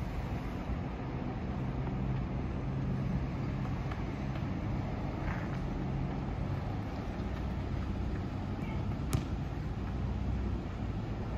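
Steady low background rumble of distant city traffic, with one sharp click about nine seconds in.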